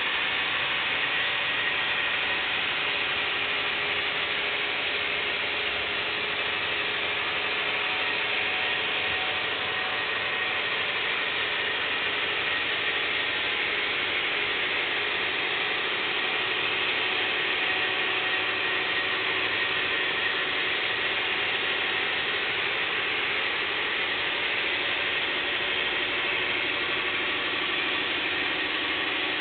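HO scale model freight cars rolling steadily along the track, a long string of them giving a continuous dense clicking rattle of small wheels over the rails.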